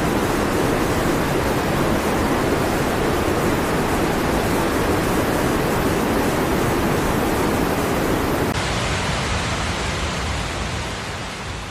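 Steady, loud rushing of water, with an abrupt change in its tone about eight and a half seconds in, then fading out near the end.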